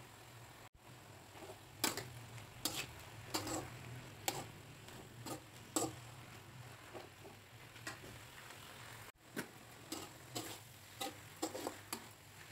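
Metal spatula clinking and scraping against a wok as tofu and melinjo leaves are tossed in a stir-fry: irregular knocks, one or two a second, over a low steady hum.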